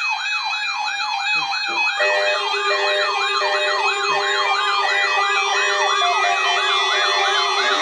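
Several electronic alert sirens sounding at once, fast rising-and-falling wails overlapping out of step. About two seconds in, a steady tone and a row of quick beeps join them.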